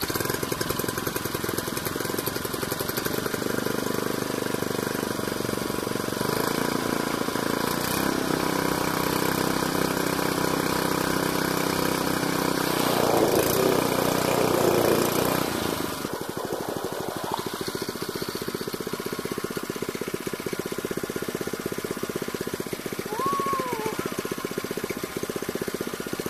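Small single-cylinder four-stroke engine of a longtail mud motor (99cc Predator) running just after being started. It runs louder for a couple of seconds past the middle, then drops back to a quieter, steady idle.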